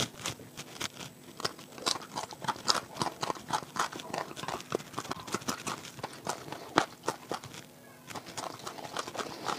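Chewing and crunching on chunks of fresh beetroot: a run of irregular crisp crunches and clicks, with a short pause near the end.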